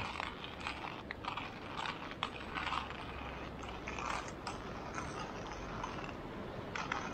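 Stainless-steel hand coffee grinder crunching coffee beans as the handle is turned: a continuous run of irregular gritty crunches.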